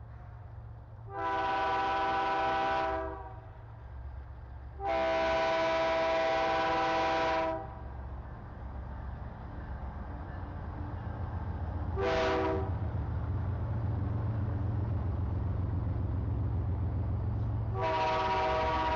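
CPKC freight locomotive's air horn sounding the grade-crossing signal of long, long, short, long, as a chord of several tones. Under it, the locomotive's engine rumble grows louder as the train approaches, and the last long blast is still sounding at the end.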